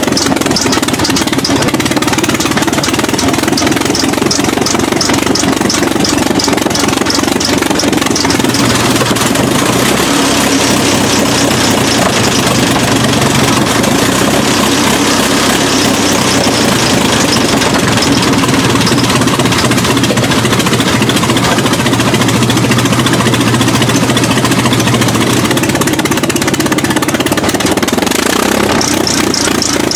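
The 1907 Fiat 130 HP Grand Prix car's 16-litre four-cylinder engine running, loud and steady with close-spaced firing beats. It runs a little harder from about nine seconds in and eases back a few seconds before the end.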